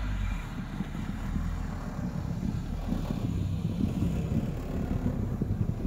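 Quad bike (ATV) on large low-pressure tyres driving through snow right past close by, its engine running under load with a rough, uneven rumble.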